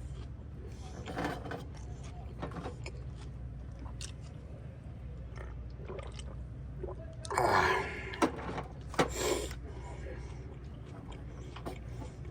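Eating sounds: small clicks and scrapes of a utensil and chewing over a steady low hum, with a short vocal sound about seven and a half seconds in, followed by two sharp clicks.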